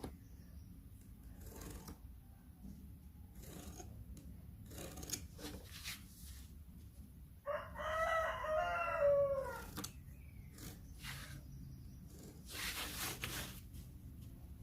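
A rooster crows once about halfway through: one drawn-out crow of a bit over two seconds that falls in pitch at the end. Short rustling and scraping noises come and go around it, the longest a couple of seconds after the crow.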